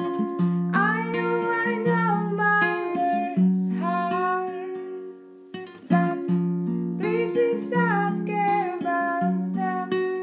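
Acoustic guitar played in a repeating pattern of plucked notes, with a voice singing over it in two phrases, about a second in and again around seven seconds in.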